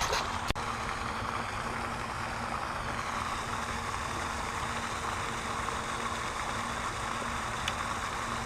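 Steady rain noise, an even hiss, with a faint low hum underneath and a single click about half a second in.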